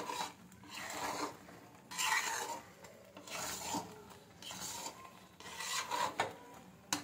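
A spoon scraping and stirring around a pan of melting jaggery, a rough scrape about once a second, as the syrup cooks down.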